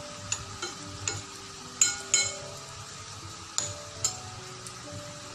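Pumpkin fritters frying in shallow cooking oil in a pan, a steady sizzle with a few sharp, ringing clinks, the loudest two about two seconds in. Faint background music plays along.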